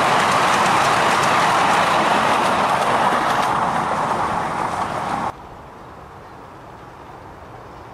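Miniature railway passenger carriages rumbling along the track with faint clicks from the wheels, fading as the train runs away; about five seconds in the sound cuts off abruptly and only faint outdoor background remains.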